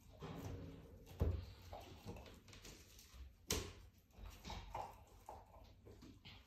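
Animal sounds with a few sharp knocks; the loudest knock comes about three and a half seconds in.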